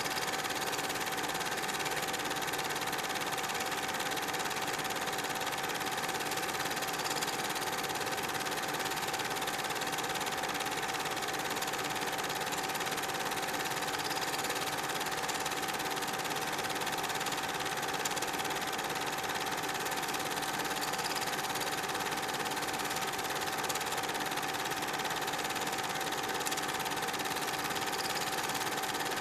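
Super 8 film projector running: a steady mechanical whir with a constant tone through it.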